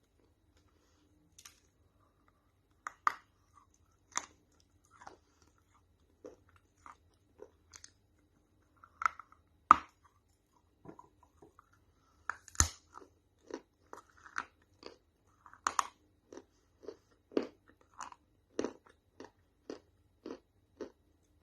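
A person biting and chewing something crunchy: a series of sharp crunches, scattered at first with two loud bites about ten and twelve seconds in, then settling into a steady chewing rhythm of one or two crunches a second.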